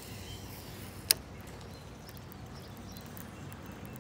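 A fishing reel engaging with one sharp click about a second in, over a steady low outdoor background.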